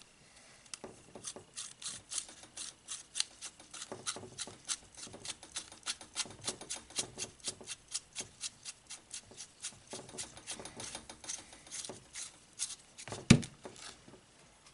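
Light metal clicks and scraping from small rifle-scope parts being handled and threaded together while the ocular lens is fitted, about three to five ticks a second, with one louder knock near the end.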